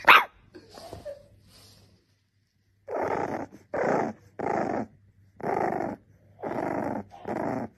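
Bulldog puppy vocalising: a loud, brief yap right at the start, then after a pause a run of about seven short growling grumbles, each about half a second long.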